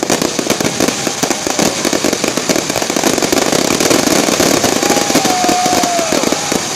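Fireworks and firecrackers going off in a dense, continuous run of rapid crackling pops, with a high tone gliding downward near the end.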